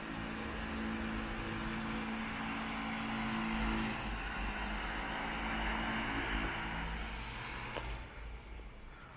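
A motor vehicle driving past close by, with an engine hum under the noise of its passing; it swells up, is loudest in the middle and fades away about a second before the end.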